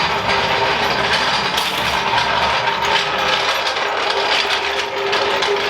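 A tool's ratchet mechanism clicking rapidly and without a break, with a faint steady whine underneath.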